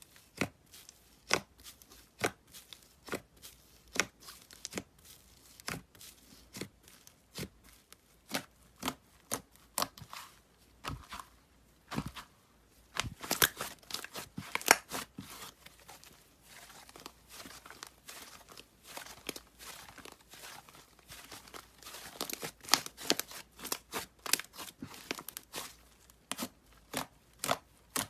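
Slime being pressed and squeezed by hand, giving a run of sharp pops and crackles. They come about one or two a second at first, then in dense crackling clusters about halfway through and again near the end.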